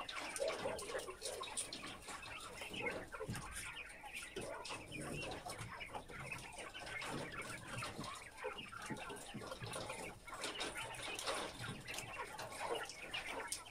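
A cage full of white jumbo Japanese quail chirping and calling, many short overlapping calls with scattered clicks.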